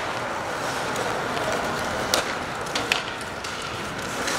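Ice hockey game sound in a rink: a steady wash of skate and arena noise with a few sharp clacks of sticks and puck, the loudest about halfway through.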